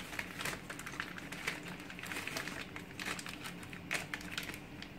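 Plastic sachet of coconut milk powder crinkling as it is shaken and squeezed empty, in small irregular crackles with a few louder rustles.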